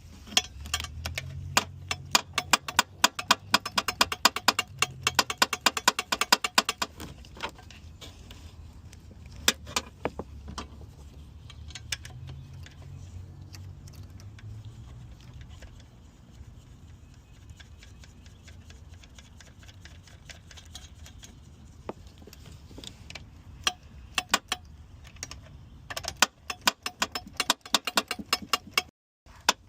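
Hand ratchet clicking in quick runs as bolts are driven in on the engine's intake. There is a long run of rapid clicks at the start, a few more clicks after about ten seconds, and another run near the end.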